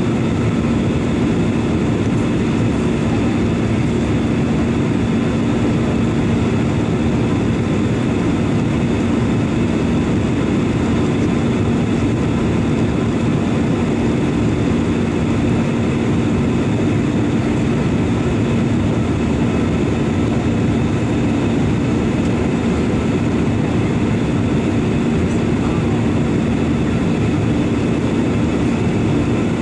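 Jet airliner cabin noise in flight: a steady engine drone and airflow roar with a constant low hum, heard from a window seat inside the passenger cabin.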